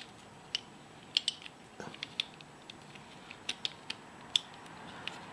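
Irregular sharp plastic clicks from a HeShu Pyraminx Gear puzzle being twisted and handled, about a dozen spread over the few seconds. The puzzle has popped a piece and catches instead of turning smoothly.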